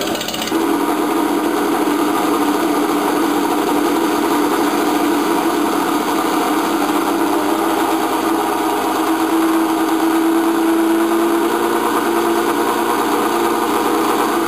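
An engine running steadily at idle, a constant droning hum with no revving.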